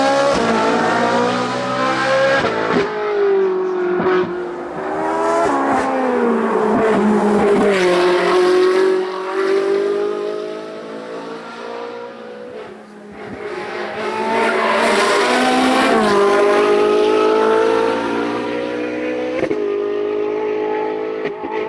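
Ferrari 458 Challenge Evo's naturally aspirated V8 racing at full throttle. The engine note climbs through the revs and breaks off at each quick gear change. It drops away on braking with downshifts, then rises again as the car pulls out of the corners.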